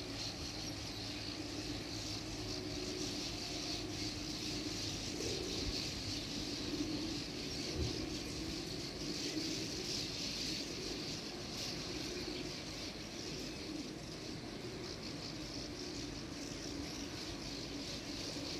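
Dense, continuous high-pitched twittering from a large nesting colony of streak-throated swallows, over a low steady hum.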